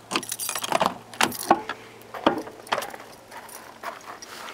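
A bunch of keys jangling and clinking as it is handled, with a string of irregular small clicks and knocks.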